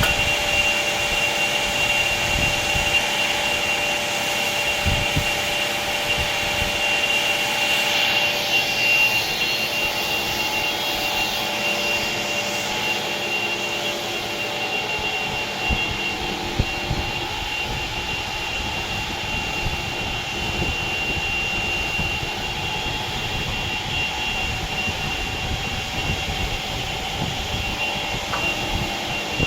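Electric woodworking machine running steadily, its motors giving a constant high whine over a continuous rushing noise.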